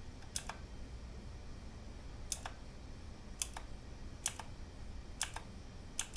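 Single key presses on a mechanical keyboard with clicky Outemu Blue switches: about six separate sharp clicks, spaced unevenly about a second apart.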